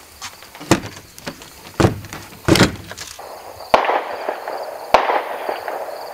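Distant gunfire: five sharp shots about a second apart, the later ones trailing off in echo.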